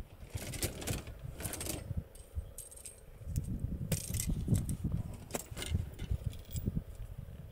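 Fishing rods and tackle being handled and drawn out of a padded rod case: scattered light clicks, clinks and rattles, a few close together about four seconds in.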